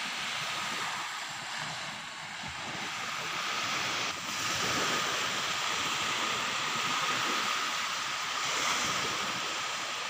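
Small waves washing up onto a sandy beach: a steady surf hiss that swells and eases gently.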